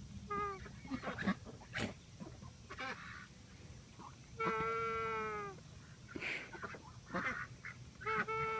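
Embden gosling's little honking, snoring-like calls as she drifts in and out of sleep: a few short calls and snuffles, one drawn-out honk about a second long midway, and another honk starting near the end.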